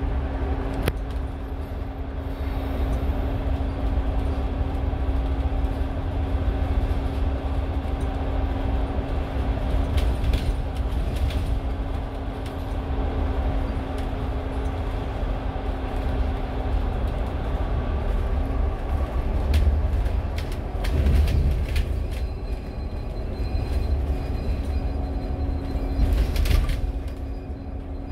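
Steady low road rumble and engine drone inside a moving double-decker bus at highway speed. The drone shifts in pitch about three-quarters of the way through, and a few short rattles and knocks come through.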